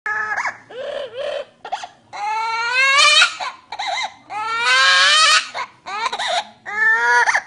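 An animal crying in a series of high, drawn-out wails, much like an infant's cry; the longer cries rise in pitch.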